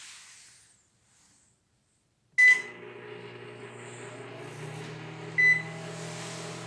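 A microwave oven beeps once about two and a half seconds in and starts running with a steady low hum; it beeps again about three seconds later, and the sound cuts off abruptly at the end.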